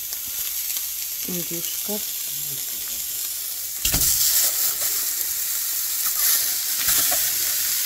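Hot stainless steel pan sizzling on the stove, with a sharp knock about four seconds in, after which the sizzle is louder.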